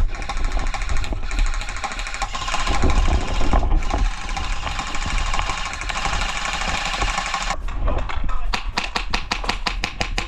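Airsoft guns firing in rapid strings, a fast mechanical rattle, then separate sharp shots several a second near the end.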